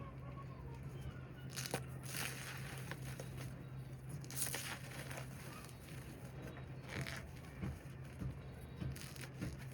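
A reformed cornstarch slab topped with loose cornstarch being crushed, in several short crunching bursts a few seconds apart, over a steady low hum.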